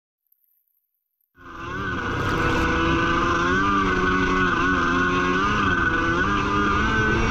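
Yamaha FX1 stand-up jet ski's two-stroke engine running under way, its pitch wavering up and down with the throttle over a steady rush of noise. It cuts in suddenly after silence, about a second and a half in.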